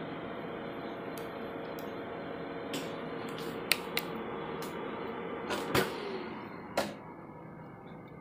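Office copier running with a steady hum, broken by a few sharp clicks and a louder clunk past the middle, after which its running noise drops. The copier has a paper jam at its exit.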